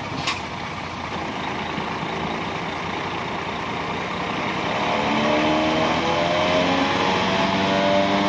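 Heavy diesel engine of an earthmoving machine at work, with a short sharp click near the start. About five seconds in the engine revs up and runs louder under load.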